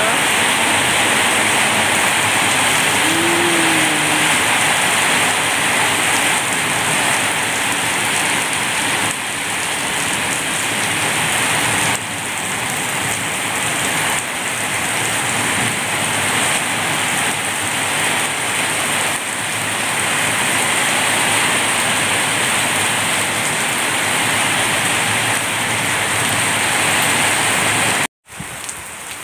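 Heavy tropical rain pouring down steadily on garden trees, potted plants and paving, a dense even hiss. It cuts off suddenly near the end.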